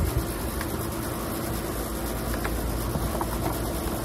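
Air-conditioner condensing unit running: a steady hum of compressor and condenser fan. A few faint ticks from the manifold and hoses being handled.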